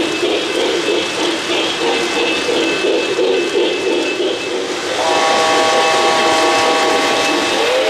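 O-gauge model steam locomotive's electronic sound system: a rhythmic chuffing over running noise, then a multi-tone steam whistle blowing a held chord from about five seconds in, shifting pitch near the end.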